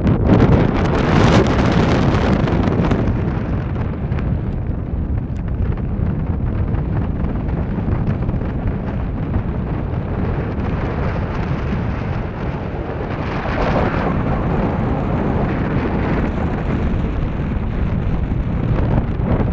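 Wind buffeting the microphone: a loud, steady rumble with stronger gusts about a second in and again about two-thirds of the way through.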